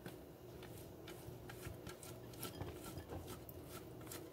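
Block of cheese rubbed on a flat handheld metal grater: faint, quick scraping strokes, about three a second.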